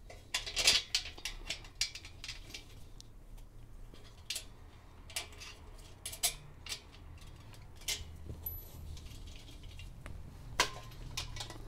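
Irregular light metallic clicks and clinks of small bolts, nuts and washers being handled and worked during assembly of a folding workbench.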